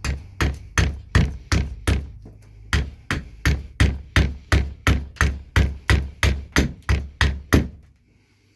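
Carving axe chopping quick, light strokes into a green maple spoon blank resting on a wooden chopping stump, about three blows a second, stopping shortly before the end.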